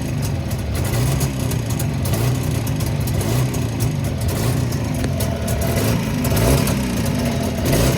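Jawa 350 two-stroke twin engine running steadily with a faint metallic noise in it, which the owners take for a piston ring after a piston and ring replacement.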